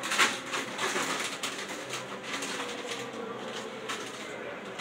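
Plastic chip bag crinkling and rustling as chips are shaken out into bowls, with light clicks and clatter, busiest in the first second or so and then quieter.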